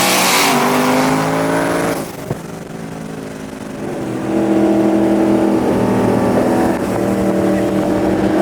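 Twin-turbo Ford Mustang V8 under hard throttle, its pitch climbing. About two seconds in the engine lets off and goes quieter, with one sharp click. After about four seconds it pulls again at a steady, higher level.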